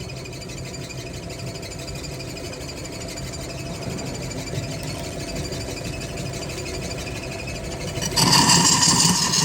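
Wood lathe motor running with a steady low hum; about eight seconds in, a much louder rough scraping starts abruptly as a tool bites into the spinning wood.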